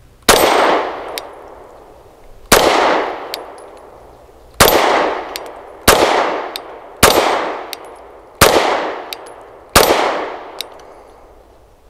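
Seven 9mm pistol shots from a Lone Wolf Arms Dusk 19, fired at an uneven pace one to two seconds apart. Each hit rings the steel spinner target with a clang that trails off.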